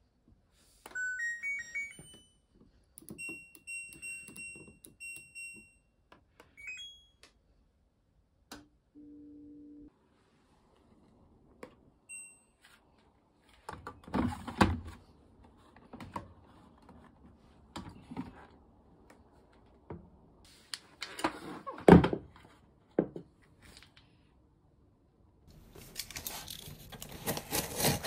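LG TROMM washer-dryer control panel: a short rising power-on chime, then several short beeps as Speed Wash is selected and started. Later come knocks and rustling as the machine and laundry are handled, with one loud thump, and near the end the rustle of a hand on a cardboard box.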